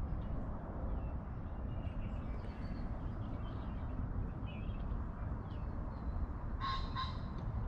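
Wild birds chirping faintly and intermittently, with two short, louder harsh calls near the end, over a steady low rushing noise.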